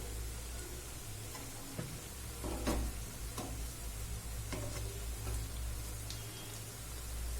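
Oat and rice-flour fritters frying in hot oil in a kadai, a steady sizzle, with a few short clicks of a utensil against the pan, the loudest about two and a half seconds in.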